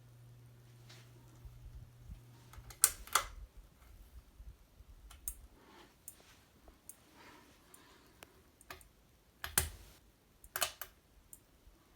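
For Living Nordica ceiling fan motor humming low and steady, cut off by a sharp click about three seconds in. Scattered clicks and knocks follow, the loudest two near the end.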